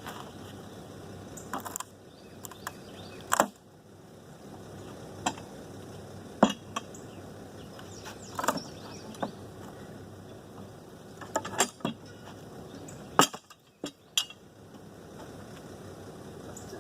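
Heavy-duty steel pallet buster prying boards off a heavily nailed pallet: about ten separate knocks and clinks at irregular intervals as the steel tool strikes and levers the wood and nails.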